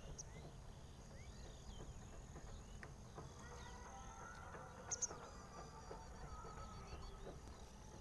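Faint morning chorus of birds chirping: many short, scattered chirps and whistles over a steady high-pitched hum, with one sharper, louder chirp about five seconds in and a quick run of ticks near the end.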